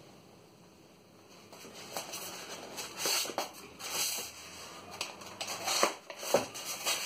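Handling a tape-wrapped parcel: rustling and scraping of the plastic wrap and packing tape, then a utility knife slicing through the tape near the end, with a few sharp clicks.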